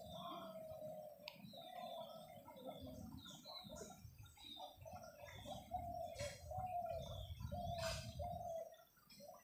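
Forest birds calling: a run of repeated, wavering notes at one steady pitch, with short high chirps from smaller birds over them and a few sharp clicks. A low rumble sits underneath and fades out near the end.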